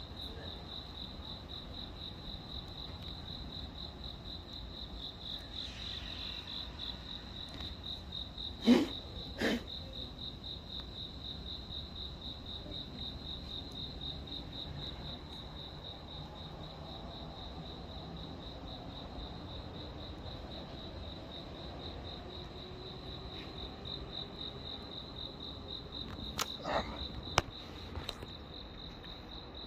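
Insects chirring steadily in one high, fast-pulsing note over a low background rumble, with two sharp knocks about nine seconds in and a few fainter clicks near the end.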